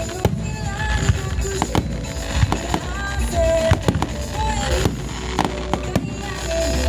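Starmine fireworks display: aerial shells bursting in a rapid, irregular string of bangs over a steady rumble, with music from the show playing underneath.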